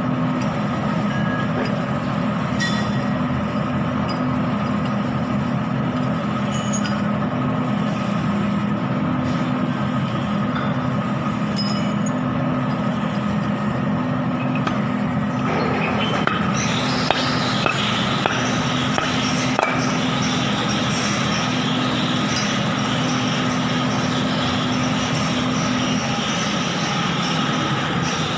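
A machine running steadily with a constant hum; about halfway through a hissing noise joins it, and near the end the low part of the hum drops away.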